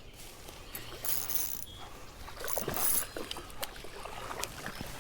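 Irregular splashing and sloshing of creek water, in a few short bursts with some sharp clicks, as a hooked smallmouth bass is fought on light tackle.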